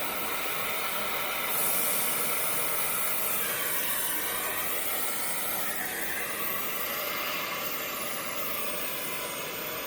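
Oxy-acetylene cutting torch running with a steady hiss as it burns out loose truck-frame rivets.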